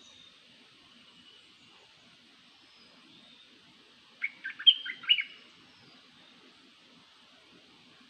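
A small bird giving a quick burst of several sharp chirping notes about four seconds in, lasting about a second, over a faint steady high hiss.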